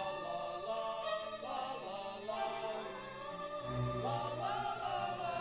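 A mixed group of men and women singing a song together in sustained, held notes.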